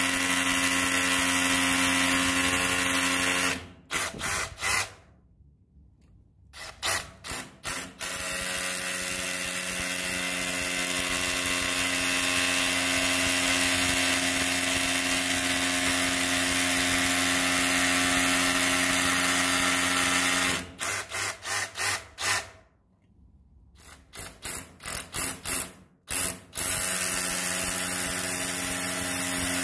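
Milwaukee M12 cordless rotary hammer's motor running at a steady speed. Twice it stops and is started in a string of short quick trigger bursts with brief pauses, then settles back into a steady run.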